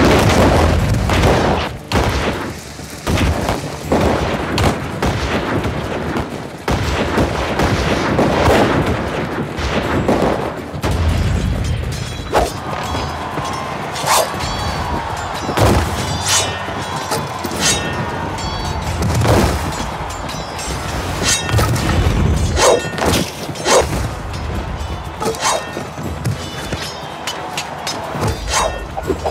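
Film battle soundtrack: a musket volley goes off at the start, followed by booming hits and many sharp clashes of close combat over a music score.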